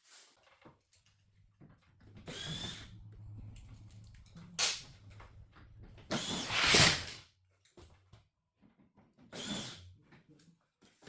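A small electric power tool run in several short bursts, the loudest and longest about six to seven seconds in, over a low steady hum.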